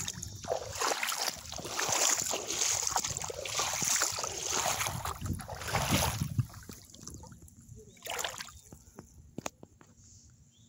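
Shallow lake water splashing and sloshing around sandalled feet as someone wades through it, a continuous wash for about six seconds. It then goes quieter, with one more brief splash a little after eight seconds and a couple of sharp clicks after that.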